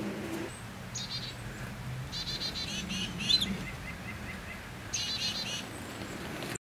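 Small songbird calling: three short runs of quick, high chirps.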